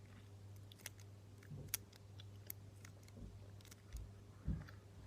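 Faint, scattered clicks from the dials of a four-wheel combination padlock being rolled round under tension on the shackle. Each wheel is being felt for the click that marks its correct number.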